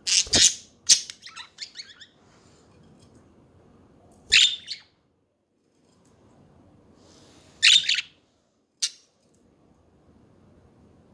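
Pet budgerigars chirping in short, sharp bursts: a loud call and a quick run of chirps at the start, then single calls about four and eight seconds in, with a brief chirp just after the last.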